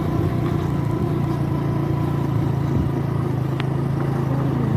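Motor vehicle engine running at a steady speed, its pitch holding constant, heard while travelling on the road.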